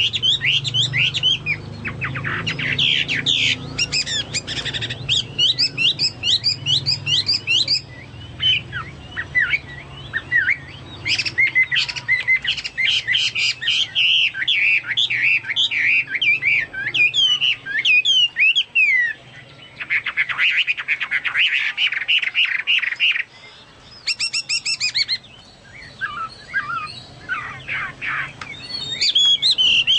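Hwamei singing continuously in long, rapid phrases of quick notes sweeping up and down, with short pauses between phrases, in a style like a cucak Papua or cucak mas.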